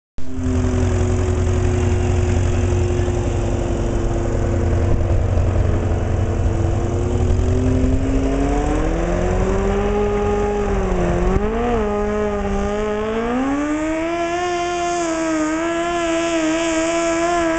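Farmall tractor engine running hard as it pulls a weight-transfer sled. It starts with a heavy low rumble, and its pitch climbs about halfway through. It dips briefly, then climbs again to a higher, steady pitch near the end.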